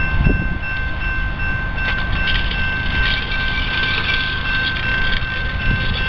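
Railroad grade-crossing warning bell ringing steadily, over the low rumble of a train approaching.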